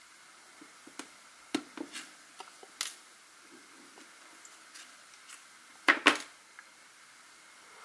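Small scattered clicks and taps of a SIM ejector pin and a smartphone's SIM tray being pushed out and handled, the loudest pair of clicks about six seconds in.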